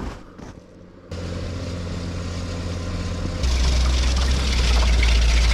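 Snowmobile-trail groomer's engine running close by: a steady low engine sound comes in suddenly about a second in and grows much louder, with a rushing hiss added, about three and a half seconds in. A few faint footsteps in snow come before it.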